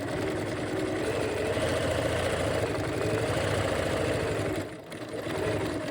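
Bernina 1130 sewing machine running steadily at speed, stitching a decorative stitch, then slowing and stopping near the end.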